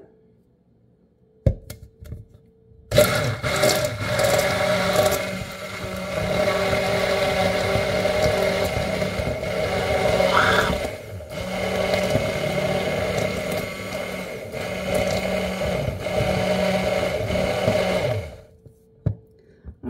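Handheld immersion blender running in its tall plastic beaker, whirring through egg, vinegar, mustard and salt: the first mix of a mayonnaise base before any oil goes in. A single knock comes first. The motor starts about three seconds in, dips briefly a couple of times, and stops shortly before the end.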